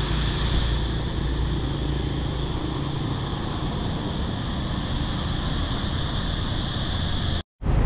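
Street ambience of distant road traffic: a steady low rumble under a constant high-pitched hum, with a brief dropout to silence near the end.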